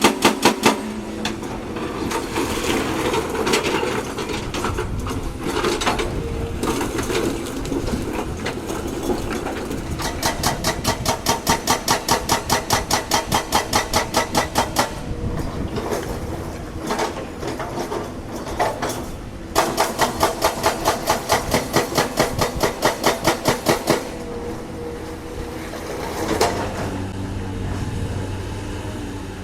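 Heavy excavator's diesel engine running under load, with two long spells of rapid, evenly spaced metallic clanking at about five strikes a second, the first starting about ten seconds in and the second about twenty seconds in.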